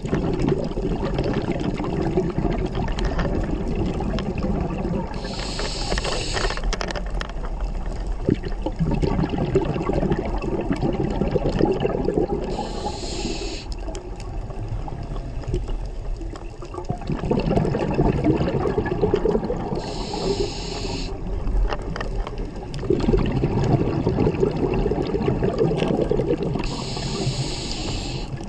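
Scuba diver breathing through a regulator underwater: a short hiss of inhalation four times, about seven seconds apart, each followed by several seconds of exhaled bubbles.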